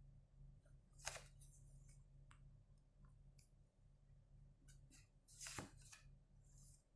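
Faint swishes and flicks of tarot cards being shuffled and handled, over a low steady room hum, with two louder card swishes about a second in and again about five and a half seconds in.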